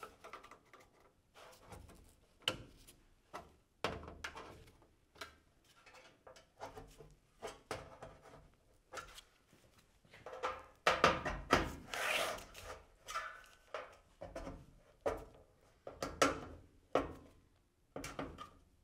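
Flathead screwdriver prying open the folded edges of a sheet-metal end cap: irregular scrapes and clicks of the blade on the metal, with a denser, louder stretch of handling a little past the middle.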